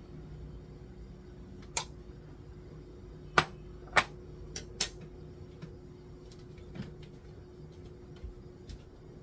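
Scattered sharp clicks and knocks, two of them louder about halfway through, over a steady low hum.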